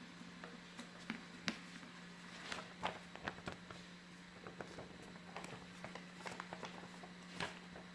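A sheet of paper being folded and creased by hand: irregular soft crackles and taps, over a faint steady low hum.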